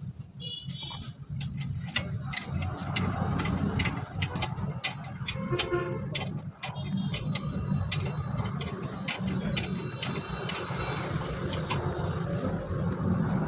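A run of sharp clicks and taps, irregular, a few a second, over a steady low hum.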